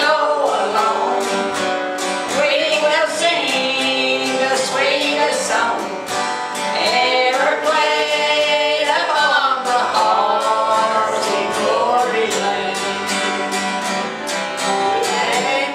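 A small gospel group singing, with an acoustic guitar strummed in a steady rhythm.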